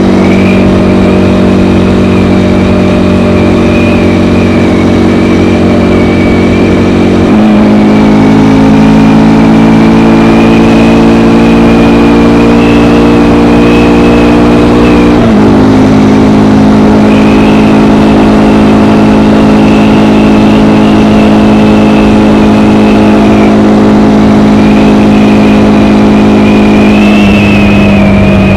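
KTM Gen 3 Duke single-cylinder engine running through its stock exhaust under steady throttle on the road. The engine note steps up about a quarter of the way in and climbs slowly, drops suddenly about halfway, and falls away again near the end. A thin high whine runs above it.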